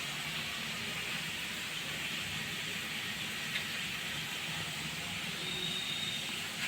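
Steady background hiss with a faint low hum, and one faint click about midway.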